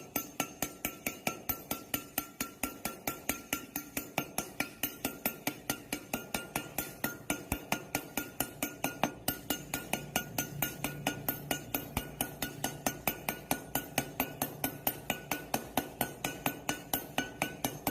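Metal lathe running, with an even metallic ticking about four or five times a second over a steady hum.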